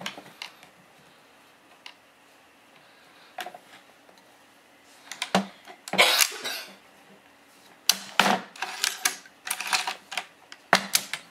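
Clicks and knocks from handling a Mosin-Nagant bolt-action rifle: single sharp clicks spaced a second or two apart, a longer scraping rattle about six seconds in, then a quick run of clicks and knocks from about eight seconds in.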